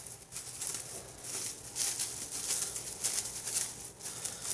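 Plastic wrap crinkling and rustling in the hands as a piece of roll butter is handled, in many short, uneven crackles.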